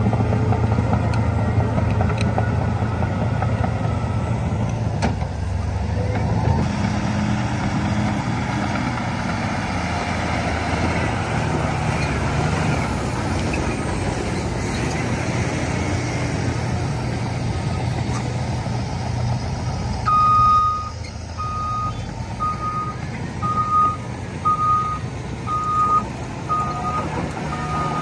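Heavy diesel construction machine running steadily. Its reversing alarm starts beeping about two-thirds of the way through, a single repeated tone at about one and a half beeps a second.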